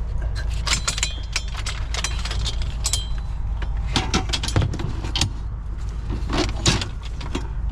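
Scrap metal clanking and rattling, with some hits ringing out, as a metal piece is pushed in among other scrap in a loaded van, over the low steady rumble of the van's running engine.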